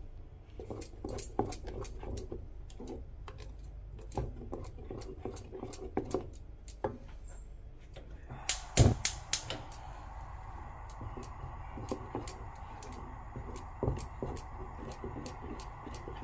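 A wooden spoon stirring a thick cocoa and condensed-milk mixture in a steel saucepan, with repeated clicks and scrapes as the spoon knocks against the pan. A short run of louder, sharp clicks comes about halfway through, and a steady hum sets in at the same point.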